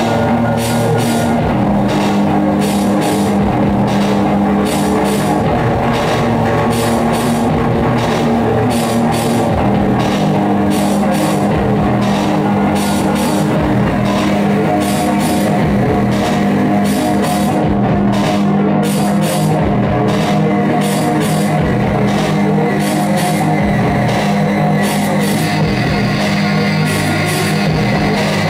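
Loud live music: steady low droning tones under a dense wash of noise that pulses rapidly and evenly, with no break.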